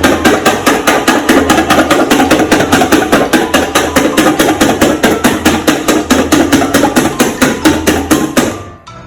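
Rapid, even knocking like hammering, about six strikes a second, over background music. It stops suddenly near the end.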